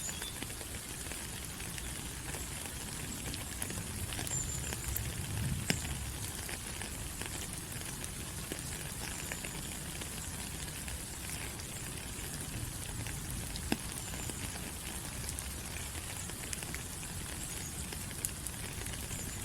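Steady rain falling on rainforest foliage, an even hiss with scattered sharp drips and a low rumble beneath, and a few faint, short high chirps now and then.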